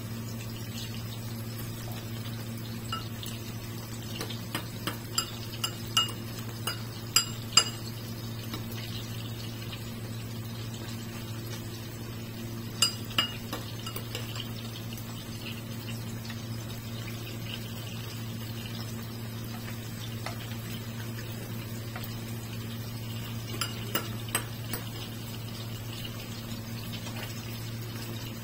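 A metal spoon clinking and tapping against a non-stick frying pan in three short clusters, the loudest about seven seconds in. Under it, chicken patties sizzle faintly and steadily in shallow oil, with a steady low hum.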